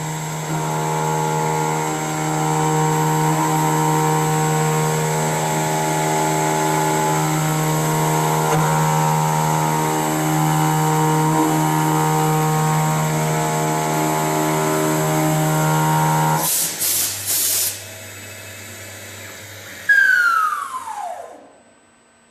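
CNC machine running with a steady, loud whine, broken off about 16 seconds in by three short hisses. Near the end a whine falls steeply in pitch and dies away as the spindle winds down.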